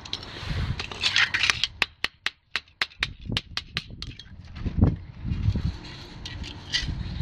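A small square of thin sheet metal and a pair of pliers handled on a concrete pavement: a short rustle, then a quick run of sharp clicks, about five a second, a dull thump about five seconds in, and a few fainter clicks near the end.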